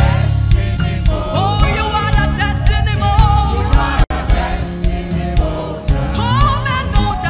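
Gospel praise-and-worship music: voices singing over instrumental backing with a heavy bass. The sound drops out for an instant about four seconds in.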